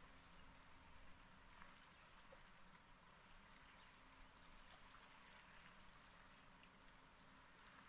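Near silence: a faint, even hiss with a few faint ticks.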